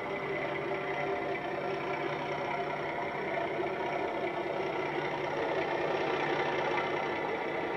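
Bachmann model Class 37 diesel's Coastal DCC sound decoder playing an English Electric diesel engine sound through its EM1 speaker, running steadily as the locomotive moves under power, a little louder near the end.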